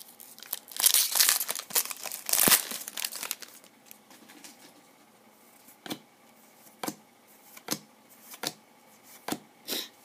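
Shiny foil wrapper of a Bowman Chrome football card pack crinkling and tearing as it is ripped open, for about three and a half seconds. Then the stack of cards is flicked through one at a time, a short snap about every second.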